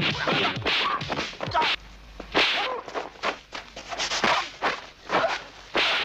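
Film fight sound effects: a rapid series of punch and kick impacts and swishes, several a second, mixed with the fighters' grunts and shouts.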